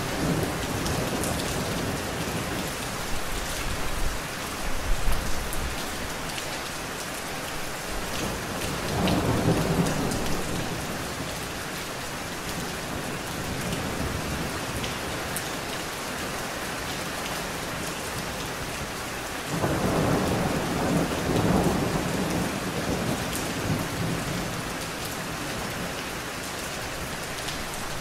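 Steady rain falling on a wet surface, with rolls of thunder rumbling three times: about four seconds in, around nine seconds, and a longer roll starting near twenty seconds.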